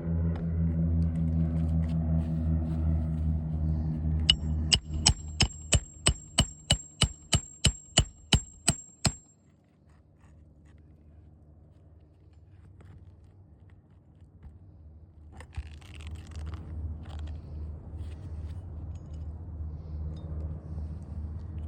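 A hammer striking metal about a dozen times in quick succession, roughly three blows a second, each with a bright metallic ring, typical of driving roofing nails or tapping a flat bar under shingles. The blows start about four seconds in and stop about nine seconds in, over a steady low hum that fades out soon after.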